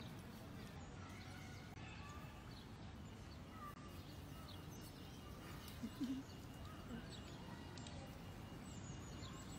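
Faint outdoor background noise with scattered distant bird chirps, and a brief low sound about six seconds in.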